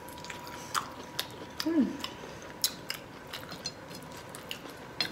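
Close-up eating sounds from a person eating shrimp: chewing, with lip smacks and finger-licking clicks scattered throughout, and a short falling hum about two seconds in.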